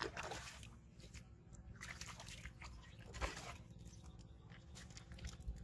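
A hooked carp thrashing and splashing at the water's surface as it is pulled in, in three short bursts: one at the start, one about two seconds in and one a little after three seconds.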